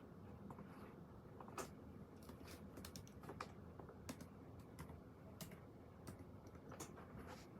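Faint, irregular clicks and taps from someone working at a desk during an exam, over a quiet room background.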